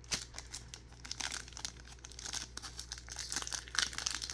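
Trading-card pack wrappers crinkling and rustling in the hands, with tearing as a pack is ripped open. The sound comes as a string of irregular short rustles.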